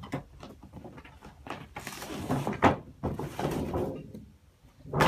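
Handling noises as a pair of sneakers is taken out of its cardboard shoebox: irregular rubbing and scraping, with one sharp knock about two and a half seconds in.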